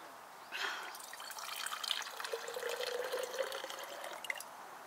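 Water running from the push-button spigot of a Stanley water jug into a clear cup. It starts about half a second in and stops shortly before the end, with a steady pitched tone for about a second midway as the cup fills.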